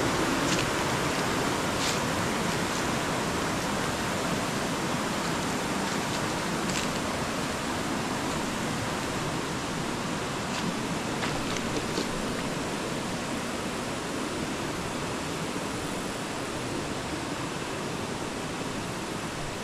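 Shallow river water rushing steadily over rocks, with a few faint clicks.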